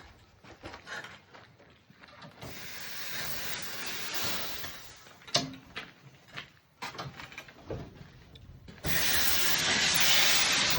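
Compressed air hissing from an air hose on the furnace burner's atomizer line as it is hooked up. There are two bursts: one swells and fades a couple of seconds in, and a louder, steady one starts near the end. Knocks and clicks of fittings being handled come in between.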